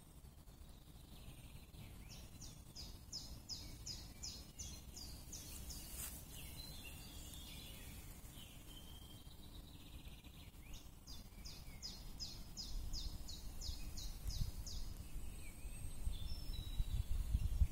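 Woodland birdsong: a songbird twice sings a quick run of about a dozen identical short high notes, with other birds chirping between, over a low rumble that grows louder near the end.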